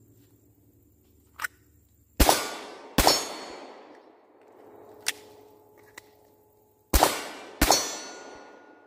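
Four 9mm pistol shots from a Glock 26: two about a second apart, then a pause with a couple of small clicks of a magazine change, then two more. Each hit is followed by the ringing of the struck steel targets.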